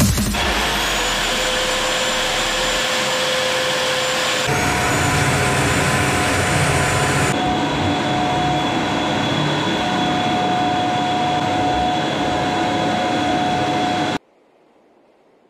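Vacuum cleaner running steadily, its metal wand and hose over a bare concrete floor: an even whooshing whine that changes abruptly twice and cuts off suddenly near the end.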